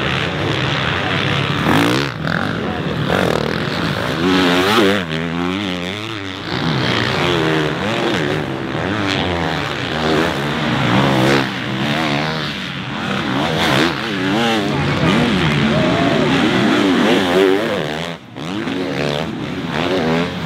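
Motocross bikes racing, their engines revving up and down in overlapping rising and falling pitches as the riders open and close the throttle and shift through the gears.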